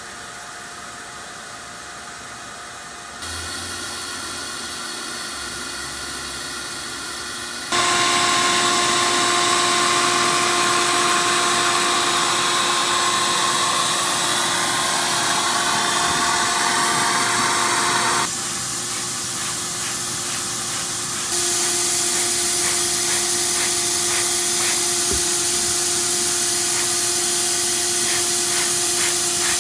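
Vacuum cleaner running, used to find a leak in a car exhaust: a steady rush of air under a constant motor whine. It gets louder in steps about three and eight seconds in, dips for a few seconds past the middle, then comes back up.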